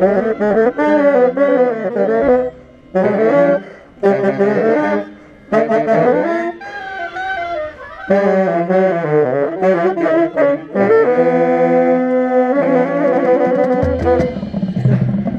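Tenor saxophone played close to the microphone in a marching band tune, in short phrases with brief breaks. About eleven seconds in it holds a long chord, and deeper parts join near the end.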